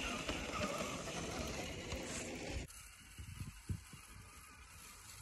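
A scale RC crawler's electric motor and drivetrain running as the truck churns through deep snow close by. It cuts off suddenly a little over halfway, leaving a quieter stretch with a few low thumps.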